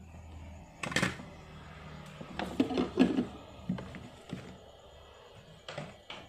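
Irregular clicks and knocks of small tools and the work being handled during repair work on a phone circuit board. The loudest comes about a second in, a quick cluster follows around three seconds, and lighter taps come near the end; no drill is heard running.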